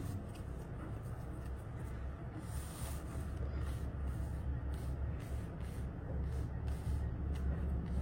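Steady low rumble in the background, with faint soft clicks and rustles of tarot cards being laid out and handled.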